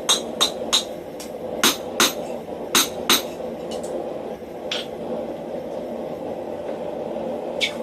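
Hammer strikes on hot iron over an anvil, each with a short ring. There are three quick blows in the first second, pairs of blows at about two and three seconds in, a couple of lighter taps, then a pause and one more blow near the end. A steady rushing noise runs underneath.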